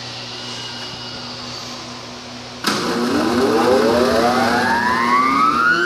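A steady machine hum, then about two and a half seconds in a sudden clunk as the 1944 Buss 4L planer's 7.5 hp cutterhead motor starts. The four-knife cutterhead spins up with a whine rising steadily in pitch as it comes up to speed.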